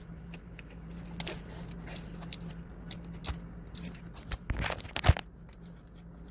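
Scattered metallic clicks, scrapes and knocks of hand tools working at a stuck, broken exhaust manifold stud, with one louder knock about five seconds in, over a steady low hum.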